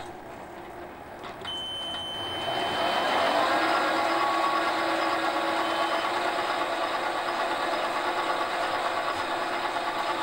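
Small metal lathe running, its motor and headstock gearing spinning the chuck that holds a crank pin blank. The running sound builds over the first few seconds and then holds steady, with a thin high whine in the first seconds.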